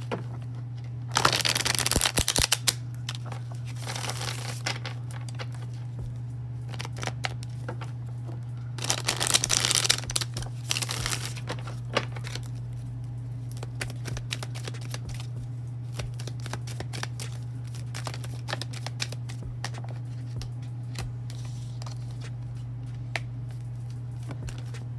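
A deck of tarot cards being shuffled in the hands: two brisk rustling shuffles, one about a second in and another near ten seconds in, with scattered light clicks of cards being handled in between, over a steady low hum.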